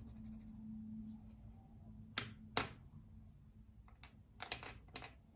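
Plastic felt-tip markers clicking as one is put down and another taken up: two sharp clicks a couple of seconds in, then a quick run of clicks near the end.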